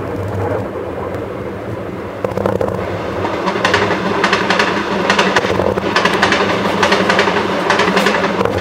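Aerial fireworks display: a continuous rumble of shell bursts, joined about two seconds in by dense crackling that builds and keeps going.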